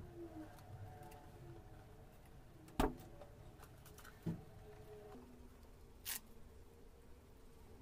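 Small handling sounds at an idle industrial sewing machine while it is threaded: a sharp click about three seconds in, a softer knock a second and a half later, and a brief rustle near six seconds. A faint steady hum lies under them.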